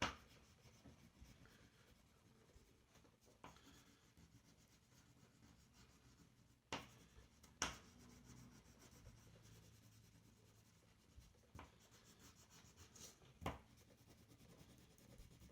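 Faint scratching of coloring strokes on paper, mostly near silence, with a few short, louder strokes about three and a half, seven and thirteen seconds in.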